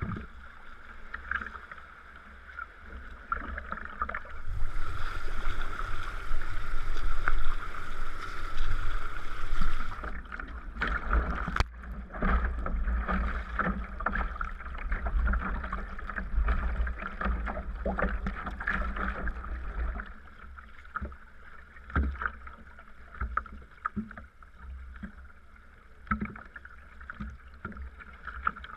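Sea kayak paddling: paddle blades dipping and splashing in the water stroke after stroke, with water washing along the hull. A low rumble of wind on the microphone runs under it, heaviest through the middle, with a stretch of hiss about five to ten seconds in.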